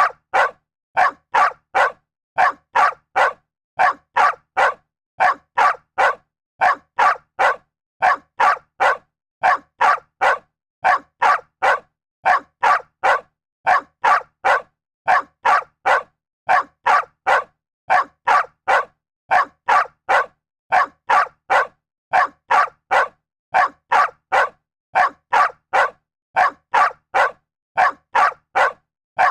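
A dog barking over and over in a steady rhythm: short, sharp barks about two a second, in runs of two or three with brief pauses between.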